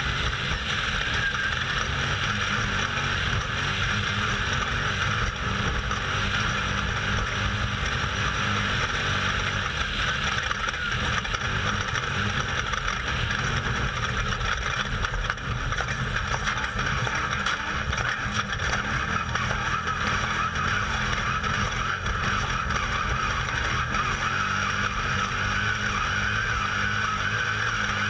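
Off-road race vehicle at racing speed, heard from on board: a steady, loud engine drone mixed with rumble and road noise that does not let up.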